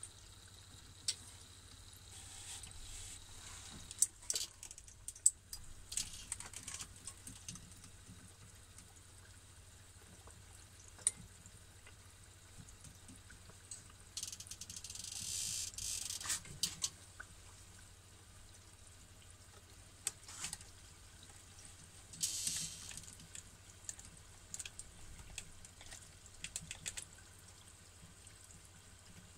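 A beef croquette deep-frying in a deep fryer's oil: a steady bubbling hiss full of sharp crackles and pops, with two short louder spells of sizzle, around the middle and again later.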